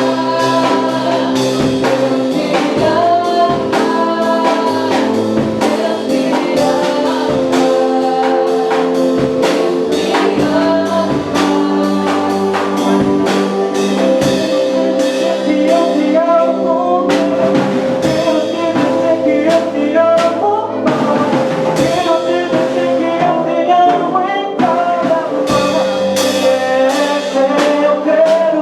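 Band music with a singing voice over drums and sustained instrumental chords.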